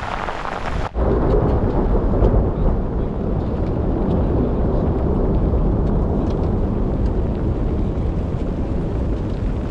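Heavy mountain rain with a deep, continuous rumble of thunder. The sound changes abruptly about a second in, at a cut, and the low rumble then dominates.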